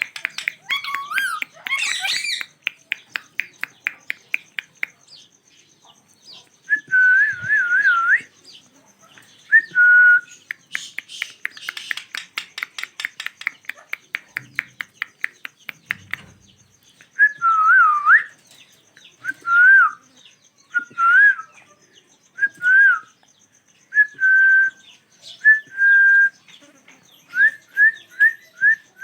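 A pair of ringneck parrots calling: fast clicking chatter at the start and again midway, and short whistled notes that bend up and down, coming every second or two and quickening into a run of short rising chirps near the end.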